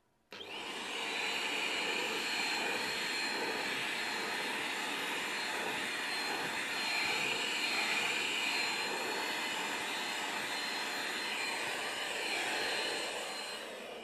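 Vacuum cleaner switched on just after the start and running steadily with a high whine. Near the end it is switched off, and the whine falls in pitch as the motor winds down.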